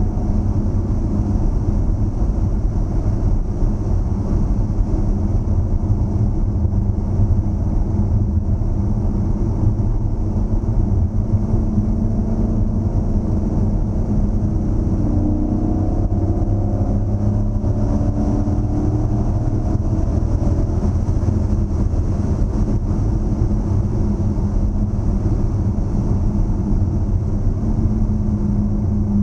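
A 2013 Dodge Challenger SRT8's 6.4-litre HEMI V8 running steadily under way, with road noise underneath. The engine note rises gently for a few seconds around the middle as the car picks up speed.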